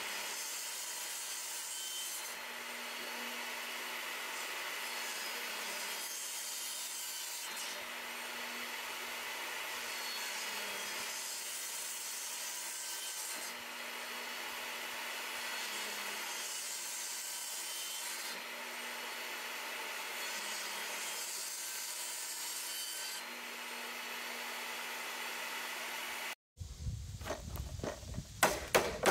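Table saw running and cutting a row of kerfs across the end of a wooden board, the sound changing every two seconds or so with each pass. Near the end the saw stops and a rubber mallet knocks out the thin wood fins left between the kerfs: sharp, loud knocks about two a second.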